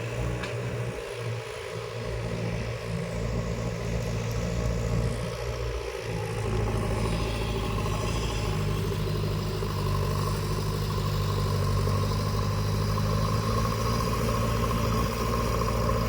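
A heavy vehicle's diesel engine running, turning steadier and a little louder about six seconds in.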